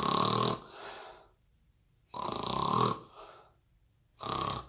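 A person imitating loud snoring: three snores about two seconds apart, each a rasping, buzzing in-breath followed by a softer breath out.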